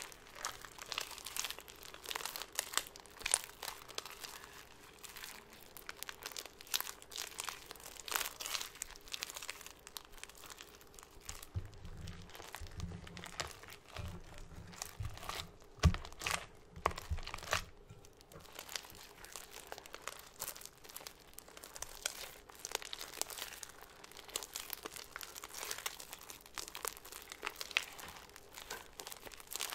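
Hands squishing, stretching and squeezing fresh cloud slime made from glue slime and instant snow: a dense, continuous crackling and crinkling. A few low thumps and one sharp knock come around the middle.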